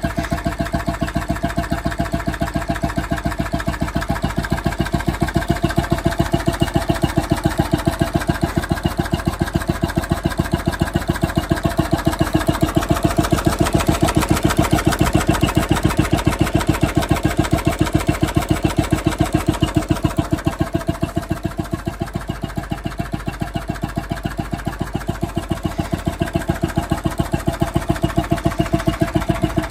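Petter 5 hp crude oil stationary engine running steadily, with an even, regular beat from its firing strokes.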